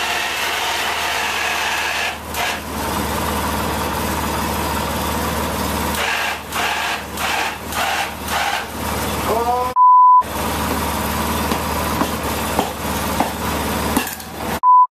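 Steady noise of a fan running, with a few short knocks and rattles between about six and nine seconds in. About ten seconds in, and again near the end, a short steady censor bleep replaces all other sound.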